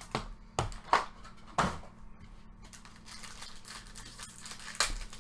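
Baseball card packs and cards being handled: quick sharp snaps and rustles of the pack wrappers and card stock, four in the first two seconds and one more near the end, with softer rustling in between.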